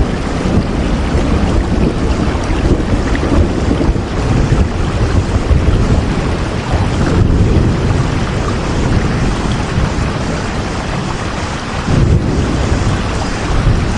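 Heavy rain falling steadily, a dense even hiss with a deep low rumble under it.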